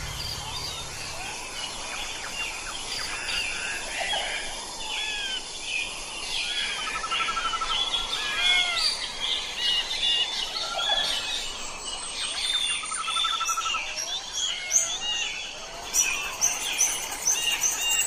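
A dense chorus of many small birds chirping, whistling and trilling over a steady background hiss. Near the end, a fast, even, high-pitched pulsing sets in.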